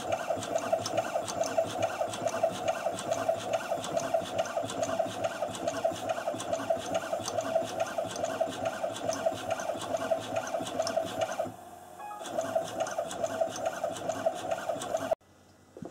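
Coil-winding machine running, turning a Honda CB250N ignition stator to wind wire onto its small low-speed source coil: a steady motor whine with fast, even ticking. It drops out briefly about twelve seconds in, resumes, then stops abruptly near the end.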